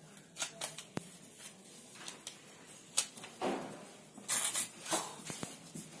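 Paper being sliced and handled with the freshly sharpened Leatherman Charge TTI knife blade, testing the repaired edge: a few sharp clicks and short rustling swishes, the loudest swishes just past the middle.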